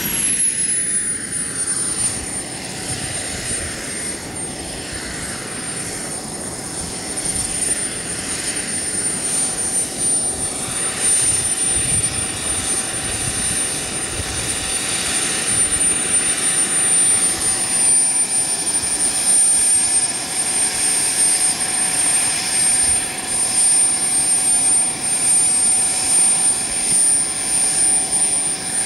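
Small model jet turbine engine running on the ground: its whine drops in pitch as it spools down at the very start, then holds a steady idle with a high whistle over the rushing exhaust, growing a little louder in the second half.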